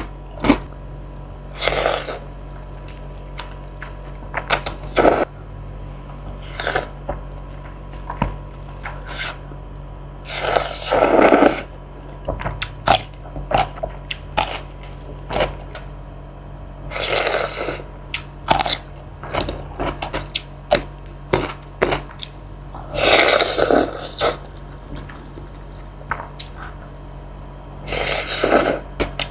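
Close-miked eating of spicy Indomie instant noodles: wet chewing and mouth clicks throughout, broken by four longer, louder mouth sounds of a second or two each.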